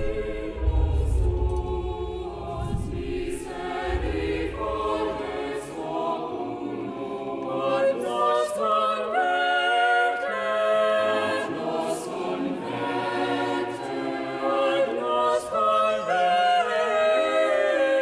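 A choir singing sustained, slowly moving chords in several voices, with a deep low rumble under the first few seconds.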